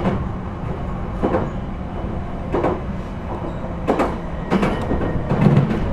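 Running noise heard inside a JR East E721 series electric train car: a steady low rumble of the wheels and running gear, with sharp knocks about every second and a bit as the wheels pass over rail joints.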